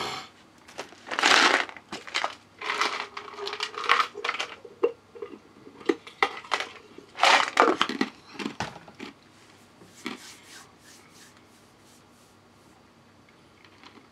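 A run of irregular crinkling, crackling and clattering sounds for about ten seconds, then much quieter near the end.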